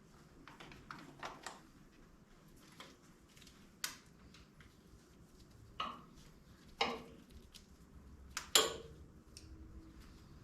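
Hand tools and metal parts clinking and clanking against each other: a string of light clicks, then a few sharper metallic knocks, the loudest near the end ringing briefly.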